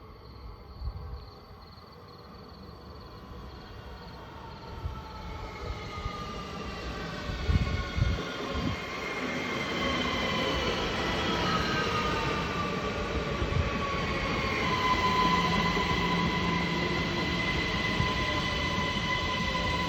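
S-Bahn commuter train arriving and braking, its brakes squealing: several high whining tones slide down in pitch as it slows, then hold as a steady squeal from about halfway through. A few low thumps come around eight seconds in.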